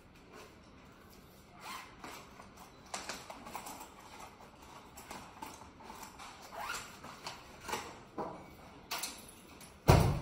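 Art supplies being handled while white acrylic paint is fetched and opened: a string of short, irregular scrapes and clicks, about one or two a second, then a single sharp knock near the end.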